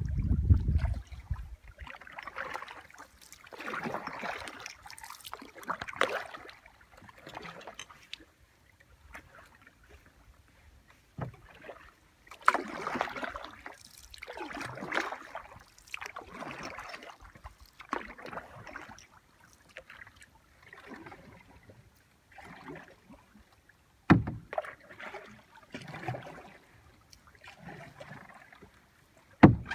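Kayak paddle strokes in calm water: the blade dipping and pulling, with splashes and drips every second or two and quiet pauses between. A few sharp knocks break in, the loudest about 24 seconds in and just before the end.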